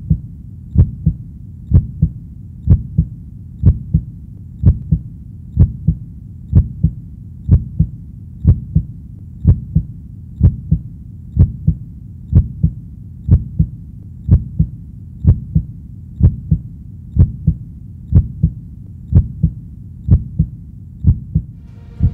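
Heartbeat: a steady double thump, lub-dub, repeating about once a second.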